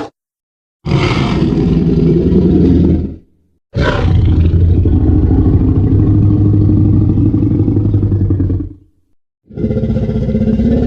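Custom Tyrannosaurus rex roars built from layered animal and monster sound effects. There are three calls with dead silence between them: a short one, a long deep roar lasting about five seconds, and a third beginning near the end.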